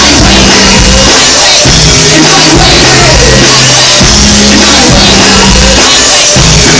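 Loud live music played over a venue sound system: a heavy bass line of held notes changing every second or two, with drums and vocals over it, between a chorus and the next verse.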